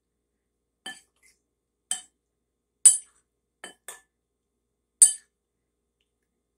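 Metal spoon clinking against a ceramic bowl while tofu cubes are tossed in their marinade: about six short, sharp clinks roughly a second apart, the loudest two near the middle.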